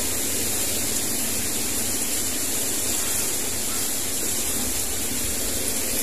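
Steady, even hiss of background noise, with no bird calls or other distinct sounds.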